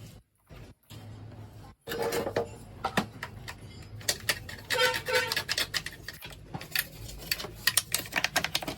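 Rapid, irregular clicking and scraping from hand work on a plastic headlight assembly. The sound drops out briefly near the start.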